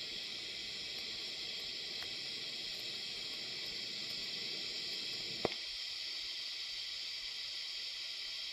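Electric arc welding on a transformer's laminated steel core: a steady hiss from the arc, with one sharp click about five and a half seconds in. The arc cuts off at the very end.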